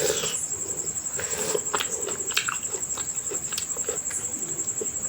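Close-up chewing and lip-smacking while eating mutton curry with rice: short, irregular wet smacks and clicks. A steady high-pitched cricket chirr runs underneath.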